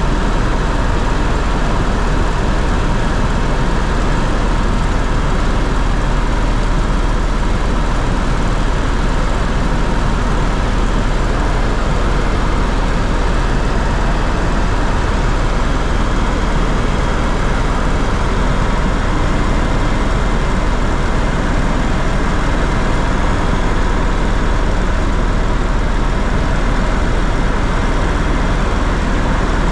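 Tour aircraft heard from inside the cabin in flight: a loud, unbroken engine drone with a deep low hum and a faint steady whine, unchanging throughout.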